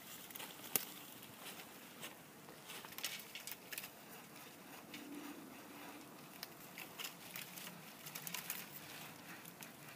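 Faint, irregular crackling and scattered clicks, with one sharper click a little under a second in.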